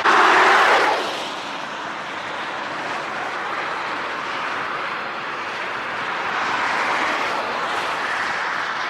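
Car driving, with steady road and wind noise heard from inside the cabin and a brief louder rush in the first second.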